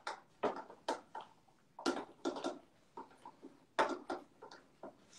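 Hair colour being mixed in a bowl with a tint brush: irregular sharp clicks and short scrapes of the brush against the bowl.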